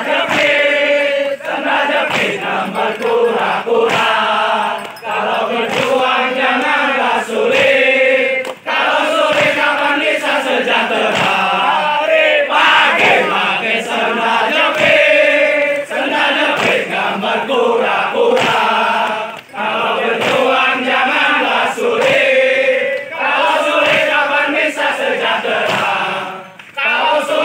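A mixed group of men and women chanting and shouting a rhythmic group cheer in unison, loud throughout, with a few brief pauses between phrases.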